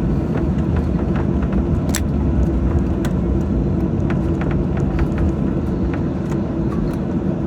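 Boeing 737-800 cabin noise before takeoff: a steady low rumble with a hum, overlaid by scattered small clicks and knocks, the sharpest about two seconds in.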